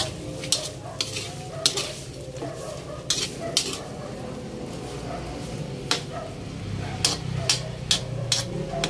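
Metal spatula scraping and clinking against a wok as yard-long beans are stirred in simmering adobo sauce, with a light sizzle underneath. The strikes come irregularly, a few at a time, and bunch up near the end.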